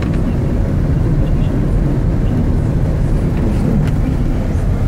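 Wind buffeting the microphone in a snowstorm: a loud, steady low rumble.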